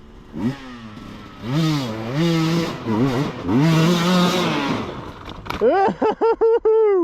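Enduro motorcycle engine revving hard through a steep muddy climb, the pitch rising and falling as the throttle is worked, with a rough hiss of spinning tyre and spray in the middle. Near the end come several quick throttle blips.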